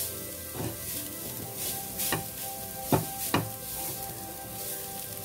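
Grated carrots sizzling as they fry in ghee, stirred with a spatula in a ceramic-lined pan, with a few sharp strokes of the spatula against the pan, the loudest two about three seconds in.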